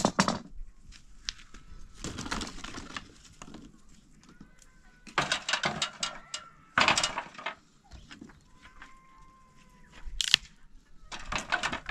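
Dry branches and sticks clattering as they are handled and set down on concrete, in several short bouts. Faint bird calls come in the gaps between.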